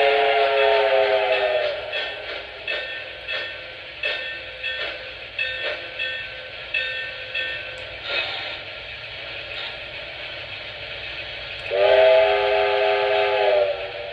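Lionel O-gauge A-5 steam switcher's onboard sound system: a steam whistle blowing a chord of several tones, then chuffs that come further apart and fade as the locomotive slows. The whistle sounds again for about two seconds near the end.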